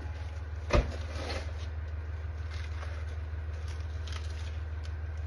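A shot-up ceramic body armor plate being handled and pulled apart: one sharp knock about a second in, then faint scraping and crackling of broken pieces, over a steady low hum.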